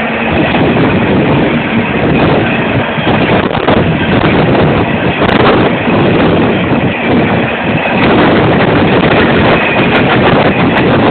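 Empty coal hopper cars of a freight train rolling past loudly, wheels knocking and clattering over the track.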